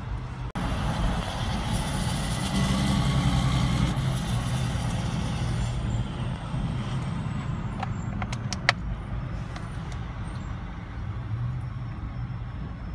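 Road traffic heard from inside a car in slow expressway traffic: a steady rumble of car and truck engines and tyres. It swells with a hissing rush about two to four seconds in, and there are a few sharp clicks about eight seconds in.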